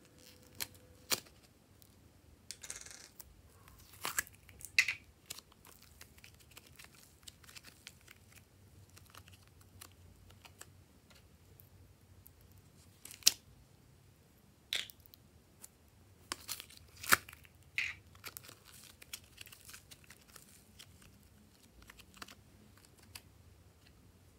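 Hands handling small plastic slime containers and soft clay: plastic lids clicking and snapping open, with soft peeling, sticky and crinkling handling noises between. A handful of the clicks stand out sharply.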